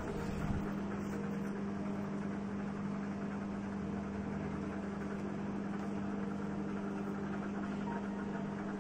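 Microwave oven running with a steady, even hum while it heats a bag of microwave popcorn.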